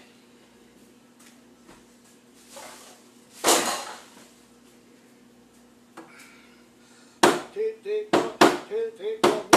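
Kitchen work at a large stockpot over a steady low hum. A brief rush of hissing noise comes about three and a half seconds in, and from about seven seconds a quick run of sharp knocks and clatters follows.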